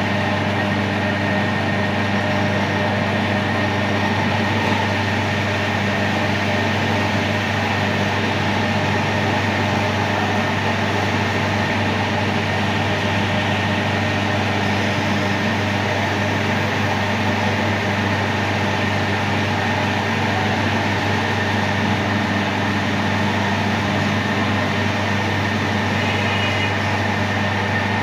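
Metal lathe running at a steady speed: an even electric-motor hum that holds without change.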